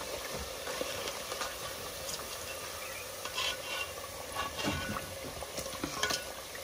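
Cassava pieces deep-frying in a pot of hot oil, sizzling steadily, with a few faint clinks of a metal utensil against the pot and bowl as the fried pieces are lifted out.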